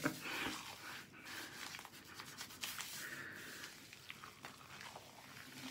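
Hands rubbing thick homemade shaving-soap lather over a bald scalp and beard: faint wet squishing with many small crackles.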